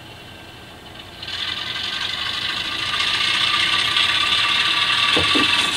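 HO scale model train running on the track: a mechanical rattle and hiss comes in about a second in and grows steadily louder, with a few low knocks near the end.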